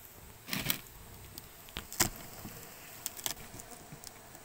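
Stingless bees buzzing around their opened coconut-shell hive, disturbed as the honey comb is harvested, with a few sharp clicks from handling the comb, the loudest about two seconds in.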